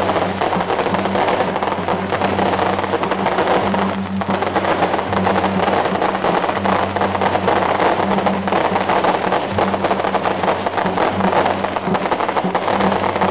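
Temple procession band playing: drums and cymbals beating in a continuous loud clatter, over a steady low hum.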